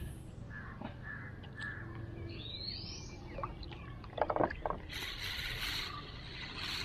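Spinning reel cranked to retrieve a lure just after a cast: a cluster of sharp clicks about four seconds in, then a steady whirring from the reel over the last couple of seconds.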